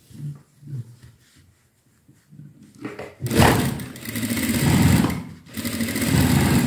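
Industrial sewing machine stitching through quilted fabric in two runs, the first starting about three seconds in, with a brief stop between them. Before that, only quiet handling of the fabric as it is positioned under the presser foot.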